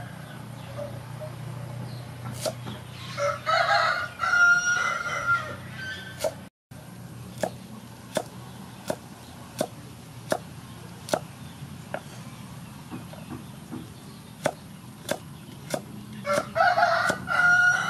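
Kitchen knife chopping carrot on a wooden cutting board, a steady knock roughly every three-quarters of a second. A rooster crows twice, about three seconds in and again near the end, louder than the chopping.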